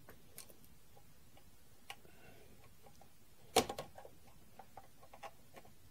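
Small clicks and scrapes of a ROM chip being worked loose from its socket on a TRS-80 Model 3 mainboard, with a sharper cluster of clicks about three and a half seconds in.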